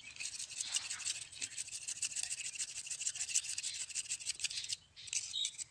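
A kitchen knife blade scraping along a thin bamboo stick in rapid, short, repeated strokes, shaving it down. The scraping breaks off briefly about five seconds in, then a few last strokes follow.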